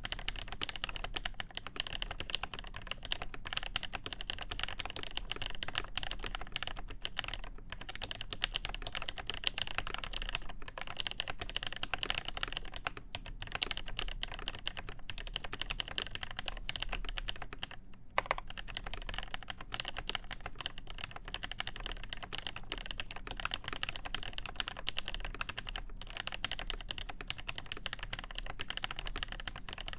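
Cherry G80-1813 (Dolch PAC) mechanical keyboard with Krytox 205g0-lubed Nolives switches, mounted on the PCB alone with no plate and capped with original Cherry Dolch keycaps, typed on in a fast, continuous stream of keystrokes. A few brief pauses break the typing.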